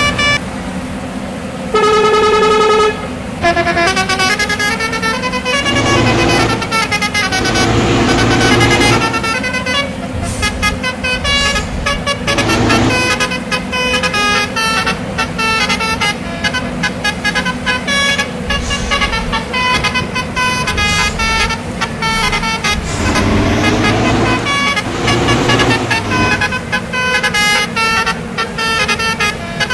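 A bus's multi-tone musical air horn of the Indonesian 'telolet' kind, honking quick runs of short notes that step up and down like a tune, with one long steady blast about two seconds in. A bus engine runs underneath.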